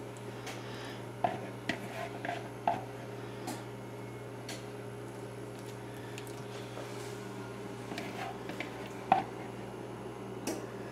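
Thick cream of chicken soup being scraped from a bowl with a spatula and spread over pasta shells in a glass baking dish: wet squelching, with a few short taps of the spatula and bowl against the glass, over a steady low hum.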